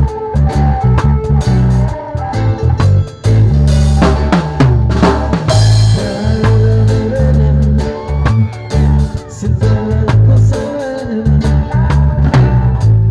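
Music with a drum kit and a strong, pulsing bass line.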